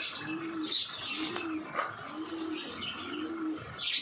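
Clear plastic bag crinkling in a few brief bursts as tomatoes are taken out of it by hand. Under it, a low cooing call repeats evenly about once a second.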